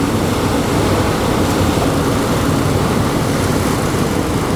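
A sportfishing boat's engines running steadily: a low rumble under a constant rush of noise.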